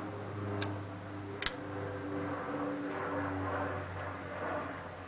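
Short hook pick working the pins of a Yale five-pin door lock under a tension wrench: two sharp clicks, a faint one just after half a second and a louder one about a second and a half in, over a steady background hum.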